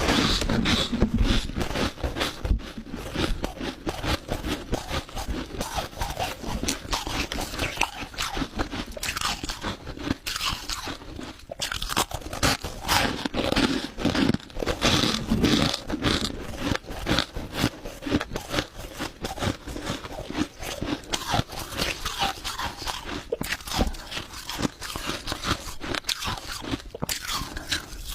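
Crushed ice being bitten and chewed close to the microphone: a dense, continuous run of rapid crunches and crackles.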